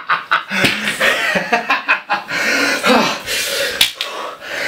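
A man's breathy gasps and grunts in short, irregular bursts.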